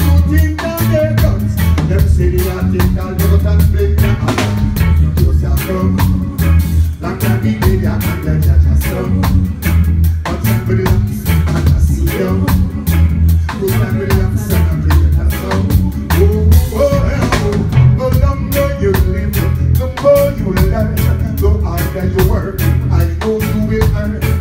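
Live reggae band playing a steady groove with drum kit, heavy bass and electric guitar, and a male singer's vocals over it.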